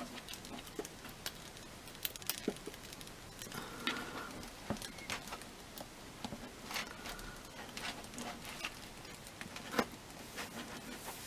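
Small plastic clicks and taps, irregular and scattered, as a plastic baseball bat is worked into an action figure's hand, with light handling rustle.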